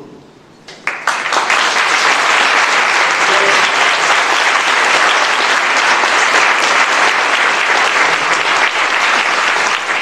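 Audience applauding, breaking out about a second in and then holding steady.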